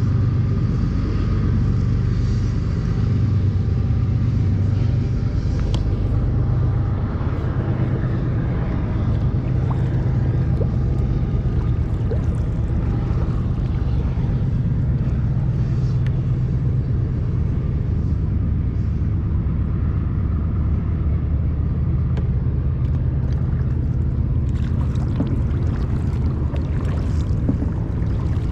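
Wind rumbling steadily on the microphone. A few faint clicks or light splashes come near the end.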